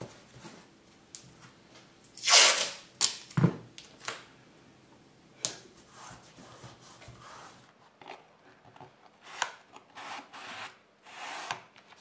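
Hands handling painter's tape and circuit boards on a mat: scattered rubbing and light taps and clicks, with one loud short rasp about two seconds in and a few brief rubbing sounds near the end.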